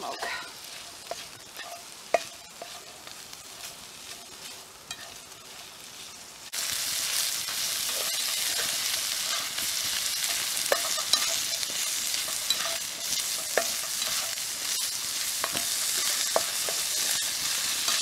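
Diced potatoes and sausage slices frying in a nonstick skillet over a campfire, stirred with a fork and then a spatula. At first the utensil scrapes and clicks lightly against the pan. About six seconds in the sizzling turns suddenly much louder and steady, with the spatula scraping through it now and then.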